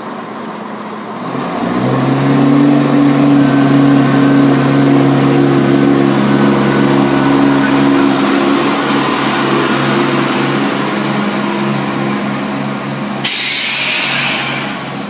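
ScotRail Class 170 Turbostar diesel multiple unit pulling away from the platform: its underfloor diesel engines open up about a second in and drone steadily as the carriages pass. A loud hiss cuts in near the end for about two seconds.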